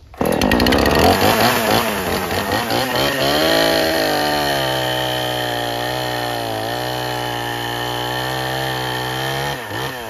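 Chainsaw cutting through a pine log, running under load at full throttle. Its pitch wavers for the first few seconds, then holds steady as the bar works through the wood, and falls away near the end as the saw comes off the throttle.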